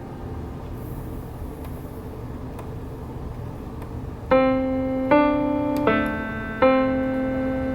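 Piano played slowly: a fading ring, then about four seconds in, four chords struck one after another, each left to ring and die away.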